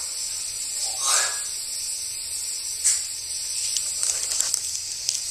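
Steady high hiss, with a brief vocal sound from a person about a second in and a sharp click just before three seconds.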